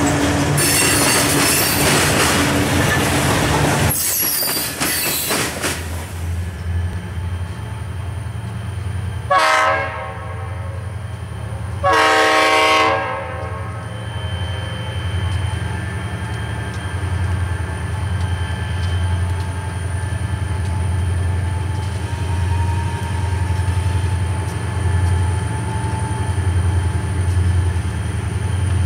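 Freight hopper cars roll past with clattering and squealing wheels for the first few seconds. After a cut, a diesel locomotive horn sounds two blasts, a short one and then a longer one about two and a half seconds later. The steady low drone of the locomotive's diesel engine follows as the train approaches.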